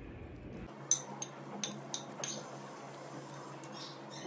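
A string of light clinks and taps of dishes and cutlery, over faint room noise.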